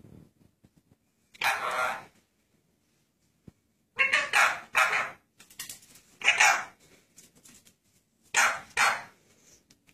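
Blue Indian ringneck parakeet giving short, harsh squawks, about six of them in bunches of one or two.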